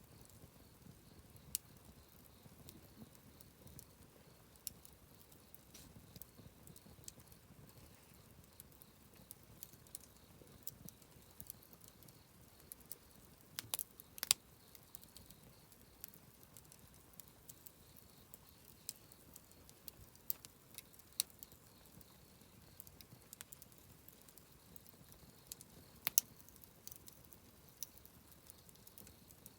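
Wood campfire crackling: scattered sharp pops and snaps over a faint low hiss of burning, with the loudest pops about halfway through and near the end.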